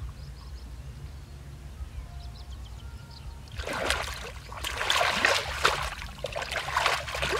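Bare feet wading through ankle-deep muddy water, splashing and sloshing with each step, starting about three and a half seconds in after a quieter stretch.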